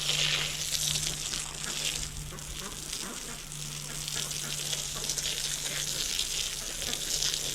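Water running steadily into a container as it is filled, a continuous hiss.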